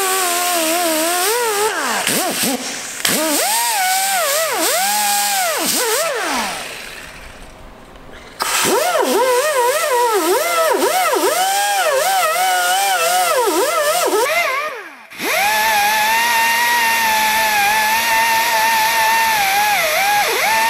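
Air-powered die grinder with a wire wheel scouring the upper and lower liner bores of a Caterpillar 1693 cast-iron engine block. Its whine rises and dips in pitch as the wheel is worked against the metal. It winds down and goes quiet about a third of the way in, then starts again abruptly, and runs at a steadier pitch in the last few seconds.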